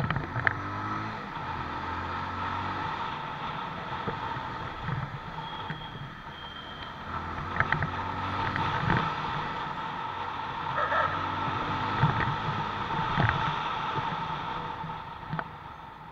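Bajaj motorcycle engine running as the bike rides through city traffic, its pitch rising with the throttle a couple of times and settling again. A few sharp knocks are heard along the way.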